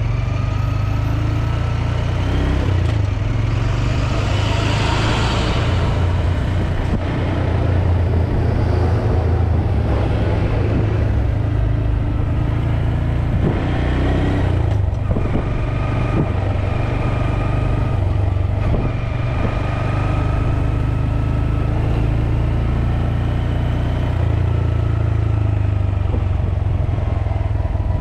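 Motorcycle being ridden along a city street, with heavy wind rumble on the microphone and a whine that slowly rises and falls as the speed changes. There are a few short knocks in the middle.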